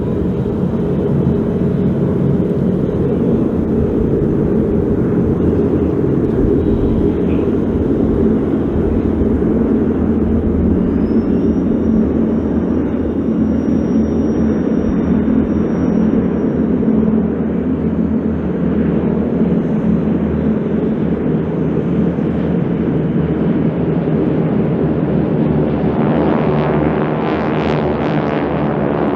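SNJ/T-6 Texan trainers' Pratt & Whitney R-1340 radial engines running together in a loud, steady drone. Gusts of wind noise come and go near the end.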